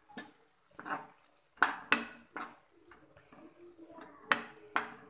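A spoon stirring in a cooking pan, clinking and knocking against it with a few sharp knocks, the loudest ones paired about a second and a half in and again past four seconds. The spoon is mixing freshly added spice powders and salt into a frying tomato-chilli masala.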